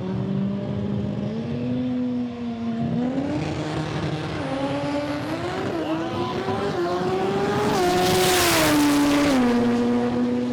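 Drag race car engines running during a quarter-mile test pass, the engine note climbing unevenly in steps for about eight seconds. Near the end comes a loud rushing hiss, and then the note drops back and holds steady.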